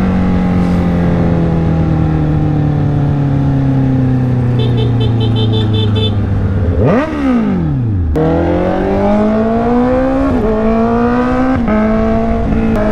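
Honda CB650R's inline-four engine heard from the rider's seat: the engine note falls steadily as the bike slows, gives a quick rev up and down about seven seconds in, then climbs in steps as the bike pulls away through the gears, the pitch dropping briefly at each upshift.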